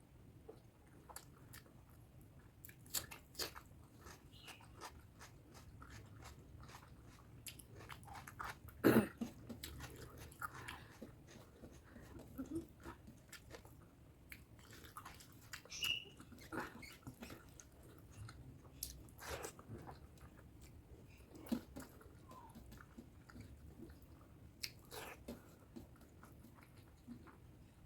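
Close-miked chewing of pork curry and rice: wet mouth smacks and clicks at irregular moments, the loudest about nine seconds in.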